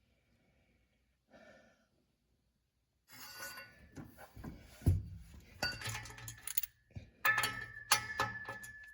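Metal hand tools clanking and clinking against each other while a seized exhaust bolt is worked on, starting about three seconds in with a string of sharp knocks. One strike near the end leaves a steady ringing tone.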